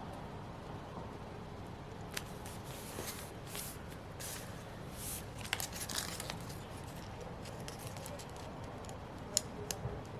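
Stickers, washi tape and paper being handled on a planner page: short tearing and rustling strokes through the middle, and a few sharp clicks near the end, over a steady hiss.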